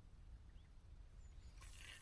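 Near silence: a low outdoor rumble, with a faint hiss starting near the end.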